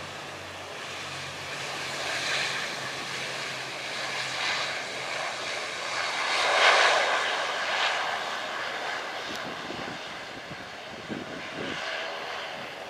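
A Wings Air ATR 72-600 twin turboprop rolling out on the runway just after landing. Its engine and propeller noise swells as it passes, loudest about seven seconds in, then fades as it moves off.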